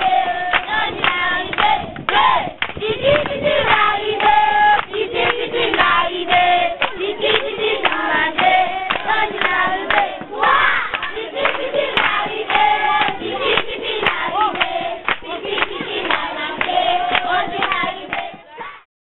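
A group of children singing together in unison, with rhythmic hand clapping throughout; it stops abruptly shortly before the end.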